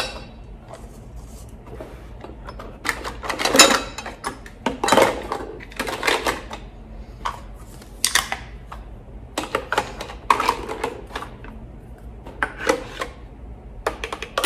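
Toy pots, pans and lids clattering and knocking against each other and against the sides of a clear plastic storage bin as they are packed in, in irregular bursts of clicks and knocks with short pauses between.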